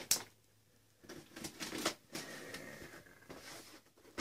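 Rustling and scraping of a cardboard parcel being handled while fingers pick and peel at its packing tape, with a sharp click at the start.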